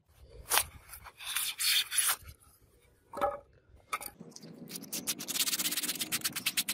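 Sandpaper rubbed back and forth on a styrofoam block in fast, even strokes from about five seconds in. Before that, a knife cutting through styrofoam gives a few scratchy bursts and a couple of sharp knocks.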